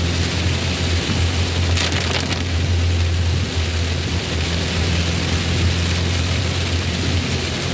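Heavy rain on the roof and windscreen of a moving ambulance, heard from inside the cab over the steady low drone of its engine, with a brief rush of louder noise about two seconds in.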